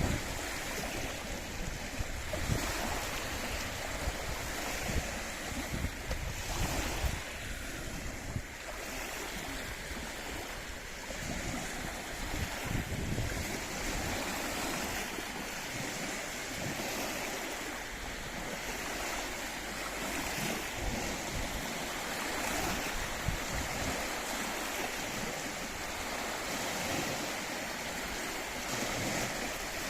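Waves on Loch Ness washing steadily against the shore, with wind and gusts buffeting the microphone, strongest in the first half.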